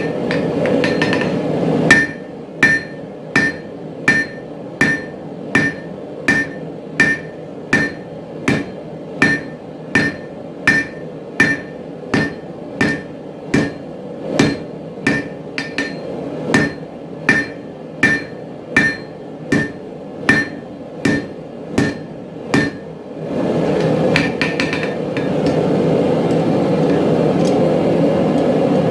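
Hammer blows on hot steel at an anvil in a steady rhythm, about one and a half a second, each with a short ring. The hammering stops about two-thirds of the way through, leaving a steady low noise.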